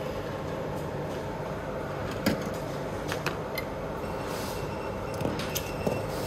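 Steady rushing airflow of a hot air rework station blowing on the circuit board while components are desoldered, with several small sharp clicks over it.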